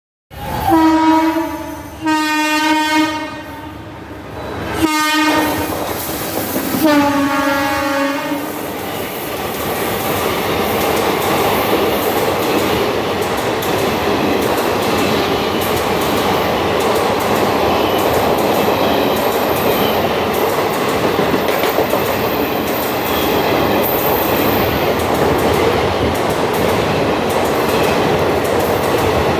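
Express train's locomotive horn sounding four blasts (three long and one short) as it approaches, then the train passing through the station at speed without stopping, with steady rumbling and wheel clickety-clack from the coaches.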